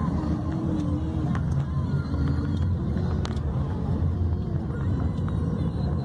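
Moving car heard from inside the cabin: a steady low rumble of engine and road noise while driving.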